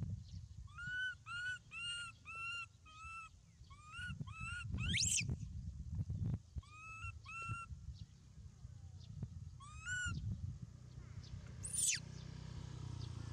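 An animal calling in short, clear, arched calls, about two to three a second, in several runs with pauses between, over a steady low rumble. A quick rising sweep comes about five seconds in and a falling one near the end.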